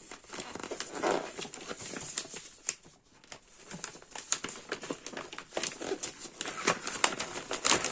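Plastic packaging of a cross-stitch kit crinkling and rustling as it is handled and opened, with irregular small clicks and a short pause about three seconds in.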